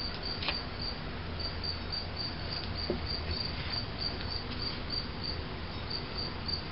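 An insect chirping steadily in a high, even pulse, about two to three chirps a second. Now and then comes a faint scrape of a plastic spreader smoothing body filler over the helmet.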